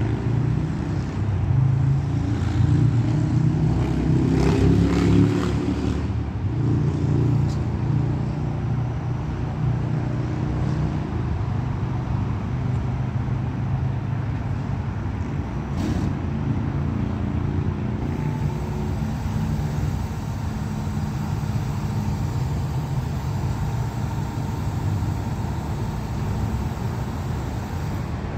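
Engine of a Peterbilt 520 front-loader garbage truck with a Heil DuraPack Freedom body running. It is louder and fuller for a few seconds near the start, then settles to a steady idle.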